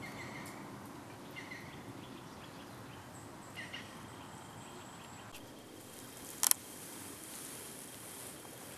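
Faint outdoor ambience: a steady low hiss with a few short bird chirps in the first four seconds, and one sharp click about six and a half seconds in.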